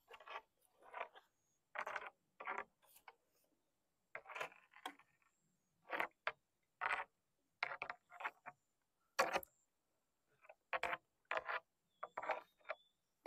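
Bamboo punting pole worked in shallow river water to move a bamboo raft: a series of short splashes and drips, one or two a second, as the pole is pushed down and drawn back up, with silence between.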